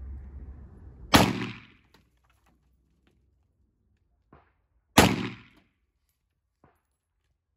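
Two single gunshots from a pistol, about four seconds apart, each with a short echo trailing off, and two faint clicks after the shots.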